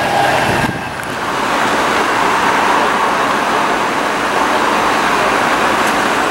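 Twin-engine jet airliner on final approach with its gear down, its engines giving a steady roar. In the first moment there is a thinner jet whine, cut off by a brief drop in level.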